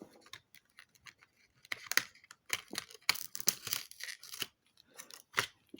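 A cardboard advent-calendar door being torn open and the small jewellery packet inside handled: a run of sharp tearing, crackling and clicking noises, busiest in the middle.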